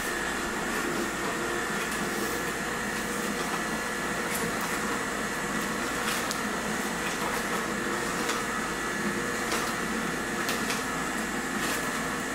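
Nama J2 cold-press juicer running steadily, its slow auger motor humming with a steady whine as it presses a hopper load of kale, apple and cucumber, with a few short clicks along the way.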